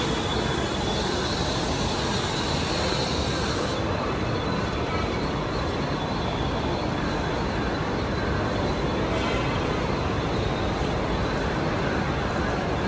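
Steady noise from a Mumbai Western Railway suburban electric (EMU) train standing at the platform, with a faint high whine that stops a few seconds in.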